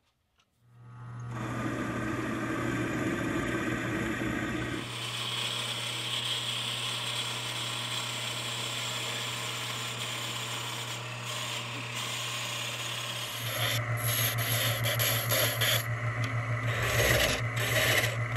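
Wood lathe running with a steady motor hum while a bit bores into a spinning wooden blank. In the last few seconds a turning tool cuts the spinning blank, with a louder, rougher, uneven scraping.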